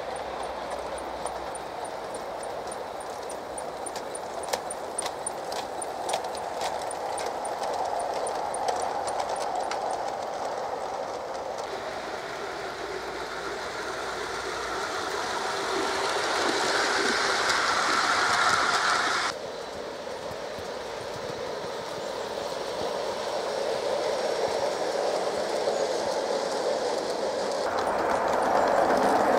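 Battery-powered LGB Corpet-Louvet model locomotives and their coaches running on garden track: a steady rolling noise of small wheels on rail, with sharp clicks over the rail joints. It grows louder as a train draws near, drops suddenly about two-thirds of the way through, then builds again.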